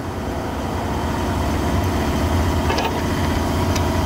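An engine running with a steady low hum that grows gradually louder, with a faint short metallic click near the end.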